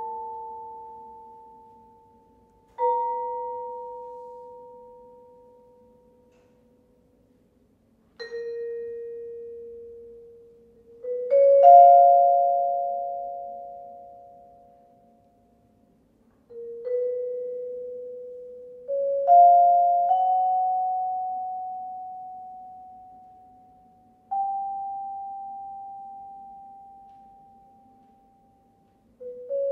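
Studio 49 vibraphone played with soft yarn mallets: sparse chords of two or three notes struck every few seconds, each left to ring and slowly die away, several fading almost to silence before the next.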